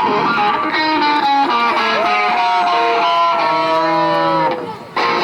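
Live electric guitar playing a flourish: quick notes, then one long held note that slowly bends down in pitch and dies away near the end, followed by a short chord.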